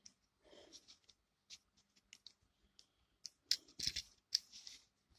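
Plastic LEGO bricks clicking against each other as a small sub-assembly is handled and a piece is pressed into place: a scattering of small clicks, busiest and loudest about three and a half to four and a half seconds in.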